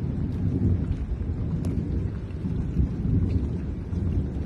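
Thunder from a lightning storm over the sea, rolling on as one continuous low rumble that swells and fades, with a few faint ticks over it.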